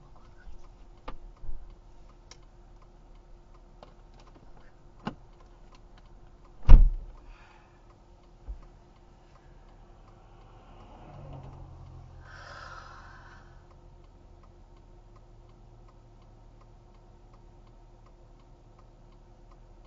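Inside a stopped car: faint, regular ticking over a steady low hum, with a sharp loud thump about seven seconds in and a lighter knock a couple of seconds later. An oncoming vehicle passes about eleven to thirteen seconds in, its tyre and engine noise swelling and fading.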